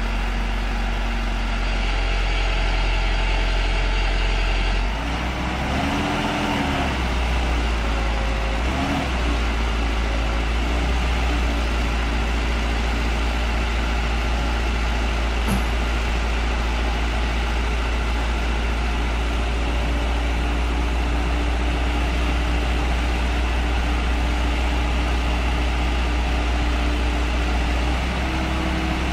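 Backhoe loader's diesel engine running steadily with a deep hum, revving up and back down about five seconds in and briefly again a few seconds later as the hydraulic arm holds and moves a suspended transformer.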